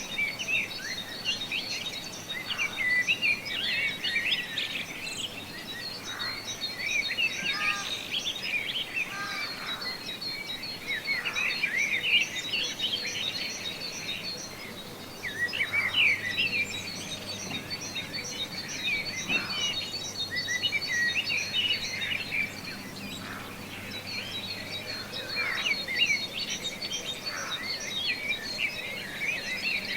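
Many small songbirds chirping and trilling together in a dense, overlapping chorus, with a faint steady high tone beneath.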